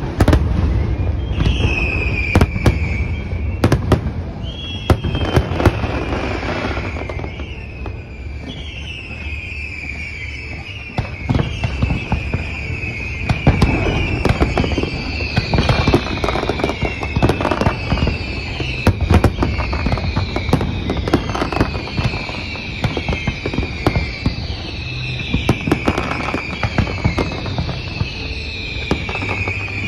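Fireworks finale: a dense, continuous barrage of booming and crackling shell bursts. A high falling tone sounds on top of it over and over, about once a second.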